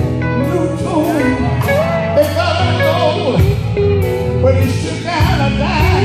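Male gospel singer singing through a handheld microphone over amplified instrumental backing, with sustained bass notes and a steady beat of cymbal strokes.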